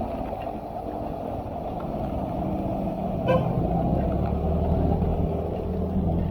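A motor vehicle engine running steadily, with a short horn beep about three seconds in.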